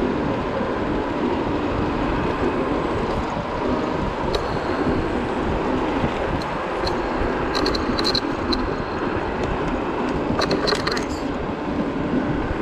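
Steady wind buffeting and road rumble from an electric scooter rolling at speed on city asphalt, with a few short clusters of sharp high ticks near the middle and again later.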